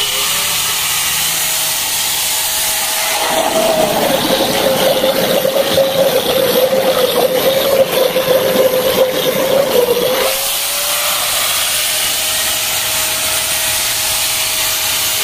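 DYK electric angle grinder running with a steady whine. About three seconds in it is dipped into a bucket of water: the whine drops a little in pitch and the water churns and splashes. About ten seconds in it is lifted out and the whine rises back to its free-running pitch.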